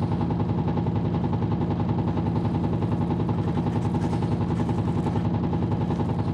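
Cartoon machine-gun fire: one long, unbroken burst of rapid shots, about eight a second.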